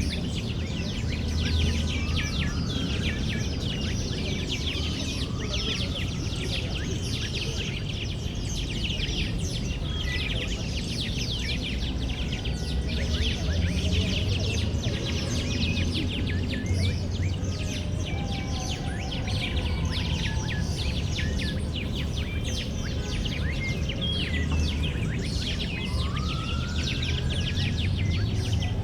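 Many small birds chirping and singing at once in a dense, busy chorus, with a few slower rising whistled notes now and then. Under it runs a steady low rumble of distant city traffic.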